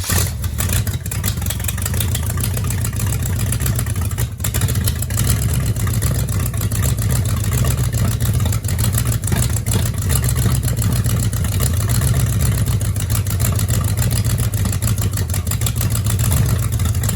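Chevy 454 big-block V8 running steadily, being warmed up before a second compression test on a cylinder that reads only about 40 psi.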